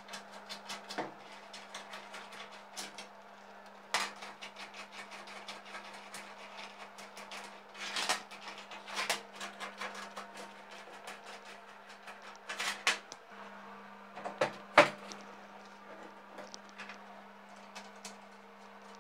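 Workshop handling sounds: irregular clicks, knocks and light clatter of tools and parts being picked up and set down on a bench, with a sharper knock about three-quarters of the way through, over a steady low hum.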